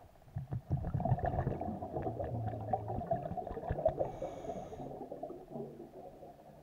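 Searobin grunting underwater: low, rapidly pulsed croaks through the first three seconds and again near the end. A brief high whine comes about four seconds in.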